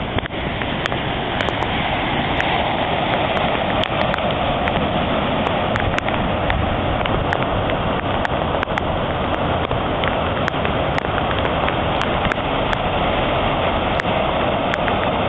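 Steady rushing and splashing of cars driving through a flooded street, their tyres pushing up bow waves of floodwater, mixed with rain.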